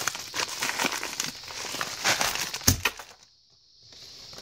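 Plastic packaging crinkling and rustling with scattered small clicks as a package of 90% silver coins is unwrapped. There is a sharper click about two and a half seconds in, then a brief lull.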